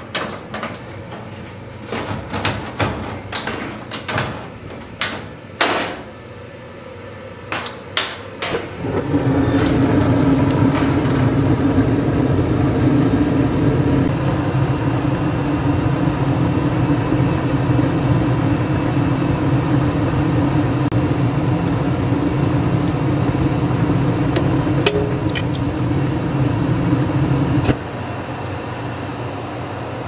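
Sheet-metal clicks and knocks as a furnace's front access panel is handled and pulled off. About nine seconds in, a steady machine hum starts and runs until shortly before the end, where it drops to a quieter hum.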